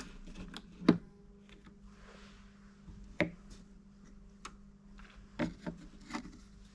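A handful of scattered light clicks and taps as the Emerson turntable's white plastic autoreturn gear is lifted off its spindle and handled over the metal chassis.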